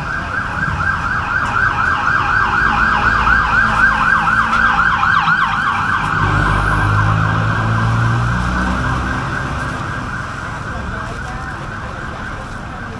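Emergency vehicle siren in a rapid warbling yelp, loudest about four seconds in and fading away after about six seconds. A vehicle's low engine rumble follows a couple of seconds later.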